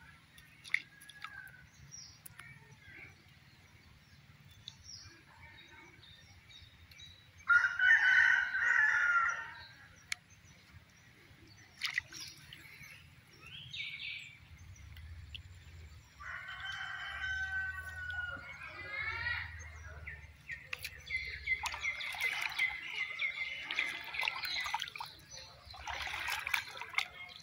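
Rooster crowing several times, the loudest crow about eight seconds in.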